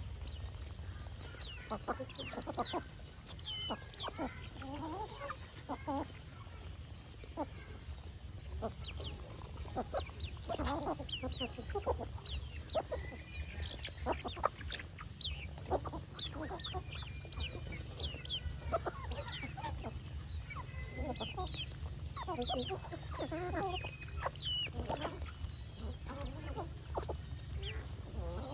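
Mixed flock of domestic geese, ducks and chickens feeding, with many short overlapping calls scattered throughout.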